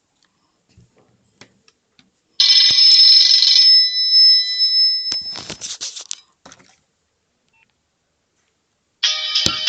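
Nokia 5070 mobile phone playing its built-in ringtones through its loudspeaker, with faint clicks at first. One ringtone starts about two and a half seconds in and breaks off after a couple of seconds, followed by a short crackly burst. Near the end a new ringtone starts.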